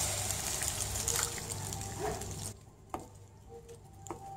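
Hot pan of grated pumpkin in ghee sizzling as milk is poured in. The sizzle dies away about two and a half seconds in as the milk cools the pan, leaving quiet stirring with a wooden spatula and a couple of light taps.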